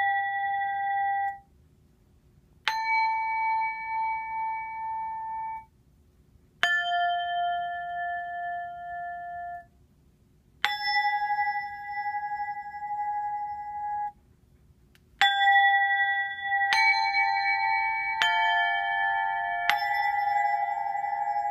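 A UFIP Ictus 75 set of four small hanging cup bells struck with a yarn mallet, each giving one clear ringing note. The G bell's ring is cut off about a second in. Then the A, F and A-flat bells are each struck once, ring for about three seconds and are stopped suddenly. Near the end the four are struck in turn, G, A, F, A-flat, about a second and a half apart, and left ringing together.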